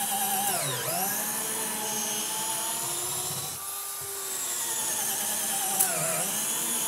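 Bosch 12-volt cordless drill on its low speed setting, boring into a wooden block with a large twist bit, its motor whining steadily under load. The pitch sags twice, about a second in and again near the end, as the bit bites harder.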